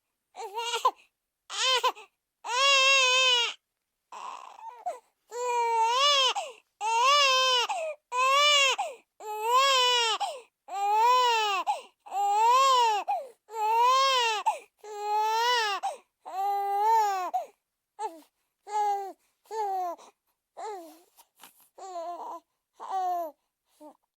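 A baby crying as a cartoon sound effect: a few short sobs, then a run of long wails of about a second each that rise and fall in pitch, then short broken sobs again near the end.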